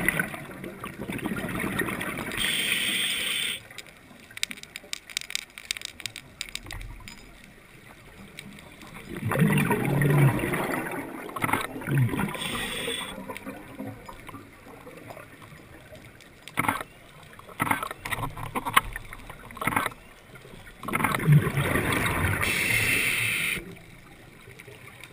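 A scuba diver breathing through a regulator underwater: three rounds, about ten seconds apart, each a bubbling exhalation followed by a short hiss of inhalation. Faint scattered clicks fall between the breaths.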